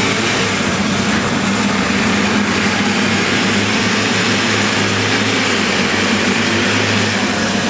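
Caterpillar 322B excavator's diesel engine running steadily at an even pitch.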